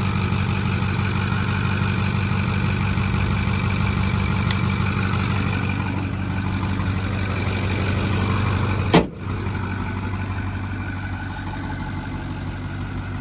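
Ford 6.4 L Power Stroke twin-turbo V8 diesel idling steadily under an open hood. About nine seconds in, the hood slams shut with one sharp bang, and the idle then sounds more muffled.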